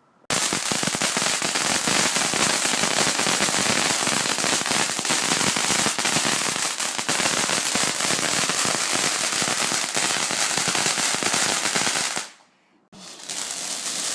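Garden firework fountain spraying sparks: a loud, continuous hiss thick with crackling that starts suddenly. It dies away near the end, and a quieter hiss picks up again after a short gap.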